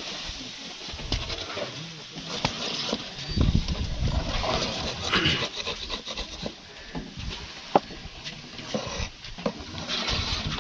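A flat metal scraper scraping and knocking in a shallow cooling tray as thick, hot jaggery is spread and worked. It makes irregular scrapes and sharp ticks, with one sharp knock about three-quarters of the way through.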